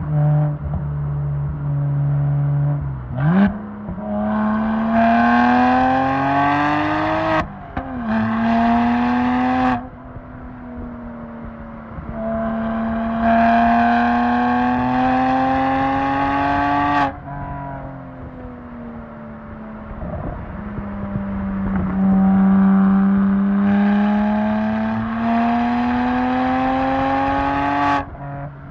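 BMW 1M Coupe's twin-turbo N54 straight-six through a full Akrapovic titanium exhaust, accelerating hard several times: the engine note climbs steadily in pitch, breaks sharply at a gear change about seven seconds in, then climbs again. Between the pulls it drops back to a quieter, steady note off the throttle.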